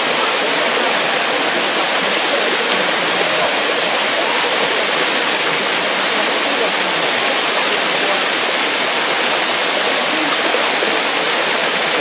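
A thin waterfall pouring over a limestone ledge into a pool below, a steady rush of falling water.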